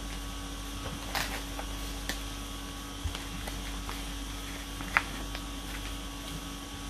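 Faint handling noises of hands working with a fishing hook, nylon line and a multi-tool in its nylon pouch: a few light clicks and short rustles, the sharpest click about five seconds in, over a steady electrical hum.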